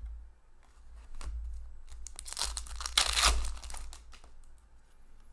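Plastic wrapper of a trading-card pack crinkling and tearing for about a second and a half near the middle, with a few light clicks of cards being handled before and after.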